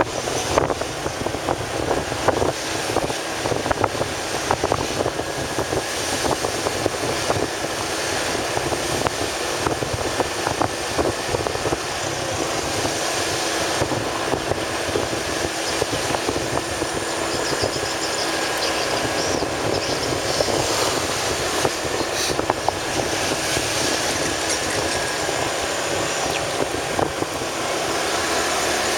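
Motorcycle running steadily on the road, its engine hum under a loud, even rush of wind and road noise on the rider's microphone.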